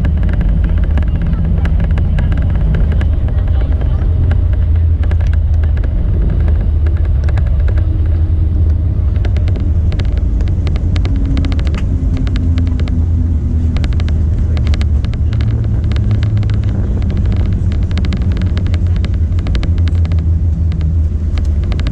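Cabin noise of a Boeing 737-800 during its landing rollout: a steady, heavy low rumble from the wheels and engines on the runway. A rapid run of rattling clicks joins it from about nine seconds in.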